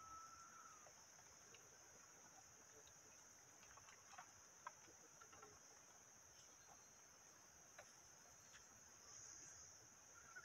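Near silence with a faint, steady high-pitched drone of insects chirring, and a few faint scattered clicks.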